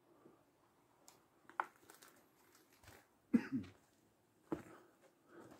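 Mostly quiet, with a few faint, scattered clicks and scuffs, and a short burst of a person's voice, such as a cough or grunt, about three and a half seconds in.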